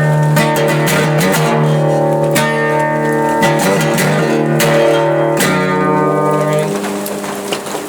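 Guitar intro: chords strummed and left to ring, a new chord every second or so, dying away near the end.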